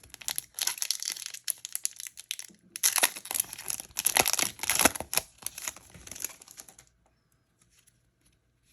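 Foil Yu-Gi-Oh booster pack wrapper being torn open and crinkled: dense crackling in several spells, loudest in the middle, stopping about seven seconds in.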